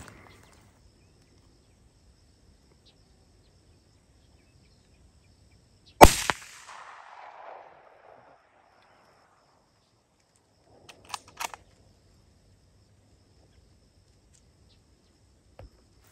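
A single hunting-rifle shot about six seconds in, followed by a rolling echo that dies away over about two seconds. About five seconds later come a few short, sharp metallic clicks.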